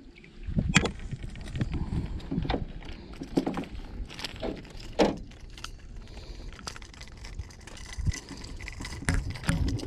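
Irregular metallic clicks and rattles from a crankbait's treble hooks as a small bass is held and unhooked by hand, over a steady low rumble.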